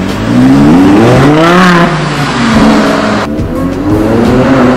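Audi R8's V10 engine revving as the car pulls away: the revs climb for about a second and a half and drop back, then climb again near the end.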